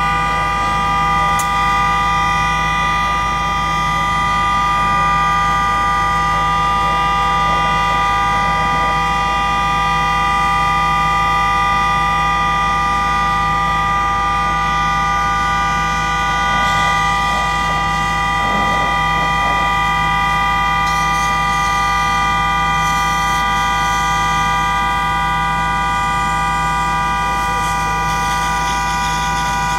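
A vehicle horn blaring continuously, a steady chord of several pitches held without a break or change.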